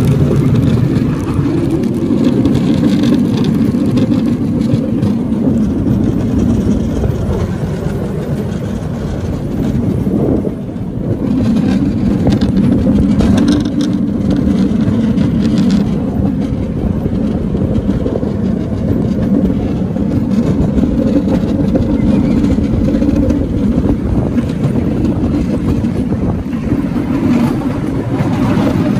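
A bamboo train's (norry's) small engine running steadily while the platform travels along the rails, briefly dropping in level about ten seconds in.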